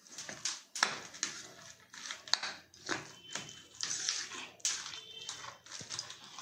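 Metal spoon scraping and knocking against a steel bowl while stirring a thick semolina-and-curd batter, in irregular strokes about two a second.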